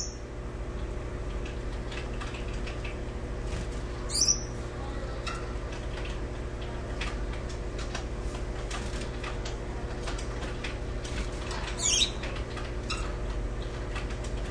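Gouldian finches giving short, high-pitched calls, one about 4 s in and another about 12 s in, with faint clicks between them as seed is pecked and husked.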